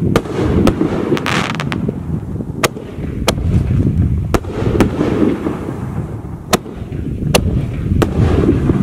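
4-inch reloadable canister aerial shells fired from mortar tubes, launching and bursting overhead. About ten sharp booms and cracks sound at irregular intervals over a continuous low rumble and echo.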